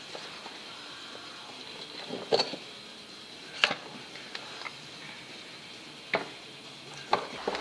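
Metal knocks and clinks of the finned cast-iron cylinder of a Chaise Vega stationary engine being worked loose and lifted off its piston. There are about seven sharp knocks spread through, the loudest about three and a half seconds in.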